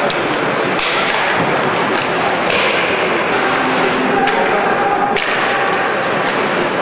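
Ice hockey play in a rink arena: skates scraping the ice, with a few sharp knocks of sticks and puck against the ice and boards over a steady hall echo.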